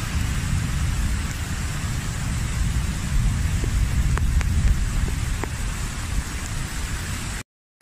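Heavy rain and rushing floodwater, with a low, uneven rumble of wind on the microphone; the sound cuts off abruptly shortly before the end.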